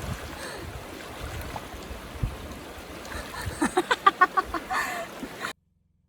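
A steady rushing noise, then near the end a person's voice in a quick run of short pitched sounds, about six a second, before the sound cuts off suddenly.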